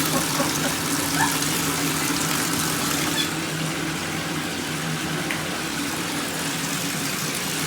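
Water running steadily from a tap, an even rush with a low steady hum beneath it. The hiss thins a little about three seconds in.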